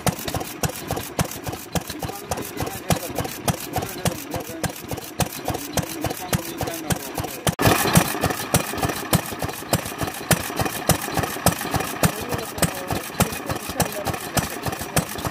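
Vintage Sekiya Nouki "Best Engine" kerosene-fuelled stationary engine running steadily, with an even, rapid beat of firing and valve-gear clatter. The sound gets fuller and louder about halfway through.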